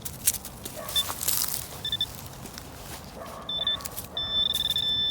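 Metal detecting pinpointer giving high-pitched beeps over a dug hole: short beeps about one, two and three and a half seconds in, then an unbroken tone near the end as it closes on a metal target. Soil scraping and crunching lies underneath.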